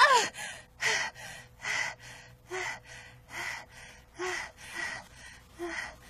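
A young woman's voice in a cartoon dub gives a short cry falling in pitch, then pants heavily, with ragged breaths coming a little under one a second. It is the sound of an exhausted fighter just after losing a clash.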